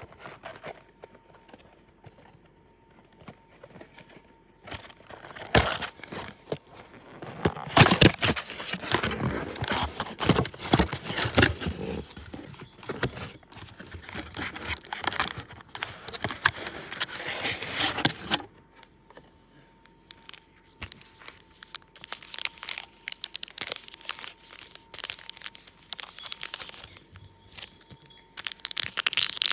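Plastic wrapper of a hockey card pack crinkling and tearing as it is opened and handled. It is quiet for the first few seconds, crinkles densely from about five seconds in until about eighteen seconds, then gives lighter rustles and ticks, and crinkles loudly again near the end.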